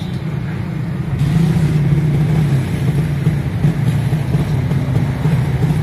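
Steady low rumble of a motor vehicle engine running close by, growing louder about a second in.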